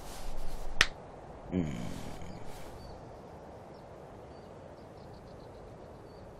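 Cartoon finger-snap sound effect: a brief swish, then a single sharp snap just under a second in, followed by a short low falling tone.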